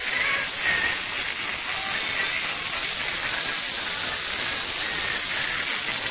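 A loud, steady hiss, even throughout and strongest in the high register.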